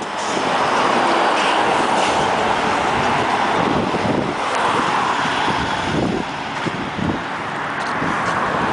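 Steady road and wind noise from a car travelling along a street, a continuous rushing hiss with some low rumbles near the middle.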